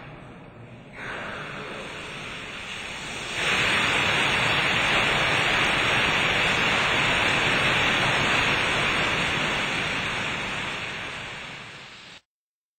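Water jetting from a pipe high on the wall into a concrete immersed-tunnel segment, a steady rush and spatter that starts about a second in, jumps to full flow a couple of seconds later, then fades and cuts off near the end. The segment is being flooded with ballast water to sink it.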